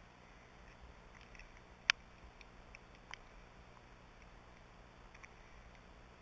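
Quiet outdoor background with a few isolated sharp clicks, the loudest about two seconds in and a fainter one about a second later.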